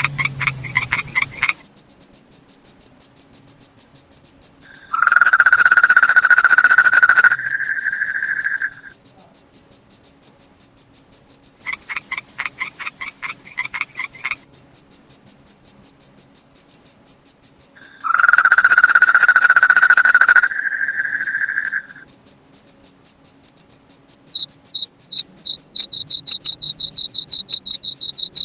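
Cricket chirping in a steady, fast, high-pitched trill. Twice it is joined by a louder call of another night animal, about two and a half seconds long, that holds one pitch and then steps up, and there are shorter pulsed calls at the start and about twelve seconds in.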